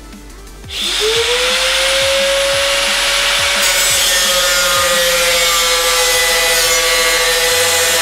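Angle grinder spinning up about a second in and cutting through the sheet-steel shell of a toaster oven: a loud steady whine over a harsh hiss.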